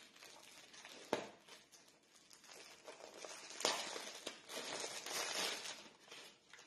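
Packaging rustling and crinkling as a small item is unwrapped by hand, with a sharp click about a second in and another midway.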